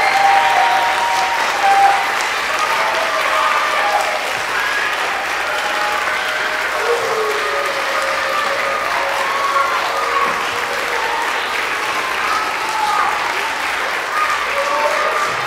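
Audience clapping steadily, with voices calling out over the applause.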